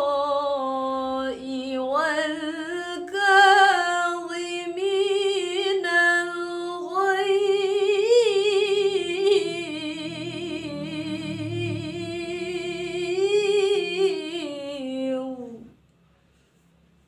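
A woman's voice reciting the Quran in melodic tilawah, drawing out one syllable in a long melisma that wavers and turns through many ornaments. It breaks off abruptly near the end.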